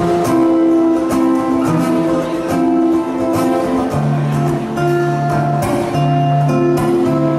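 Instrumental live music led by strummed guitar chords in a steady rhythm, with sustained bass notes and no singing.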